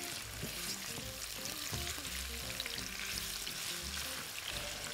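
Sliced onion and garlic sizzling in oil in a nonstick frying pan, stirred with a silicone spatula: a steady crackling hiss of gentle sautéing.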